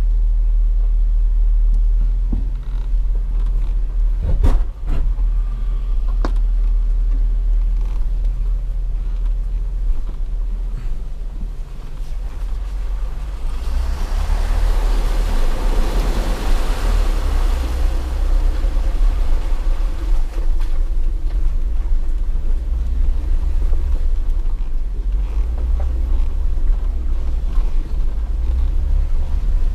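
Off-road 4x4 driving slowly along a dirt trail, a steady low rumble of engine and drivetrain picked up at the hood. A few sharp knocks come about four and six seconds in. About halfway through comes a few seconds of hissing splash as the tyres run through standing water.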